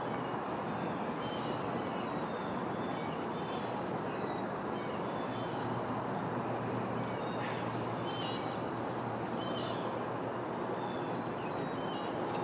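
Steady outdoor background noise with small birds chirping faintly now and then.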